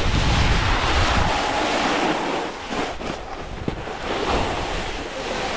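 Wind buffeting the microphone, with the steady hiss and scrape of riding down a ski slope over tracked snow.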